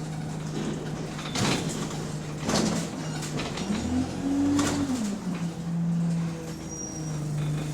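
Bus engine running, heard from inside the cabin, on a bus with a leaking exhaust. The engine note rises a little over a second or so, about halfway through, then drops back. Several short hissing bursts break in, at about 1.5, 2.6 and 4.7 s.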